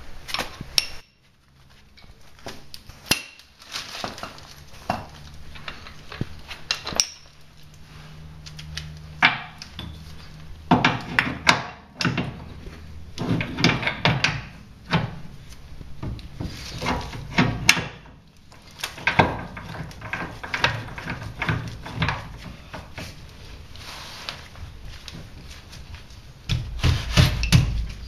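Irregular metal clanks, knocks and scraping from hand tools and a C-frame ball joint press being set up and worked on a Dana 30 steering knuckle while new ball joints are fitted.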